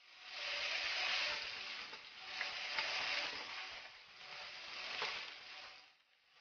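Sliced red onion and bell pepper sizzling in oil in a nonstick frying pan as they are stirred with a spatula. The sizzle swells and fades about three times, with a few light ticks.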